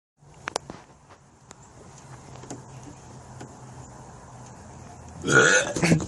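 A person belches loudly once near the end, after a quiet stretch with a few faint clicks.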